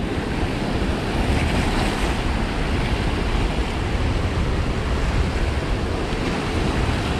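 Steady wash of surf with wind buffeting the microphone.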